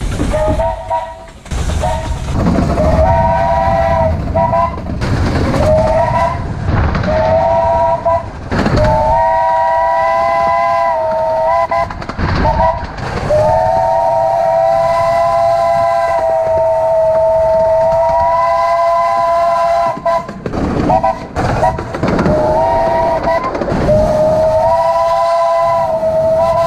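Three-note chime steam whistle of a Romney, Hythe & Dymchurch Railway steam locomotive, sounded over and over in short and long blasts, the longest about seven seconds. Beneath it the miniature train rumbles along the track.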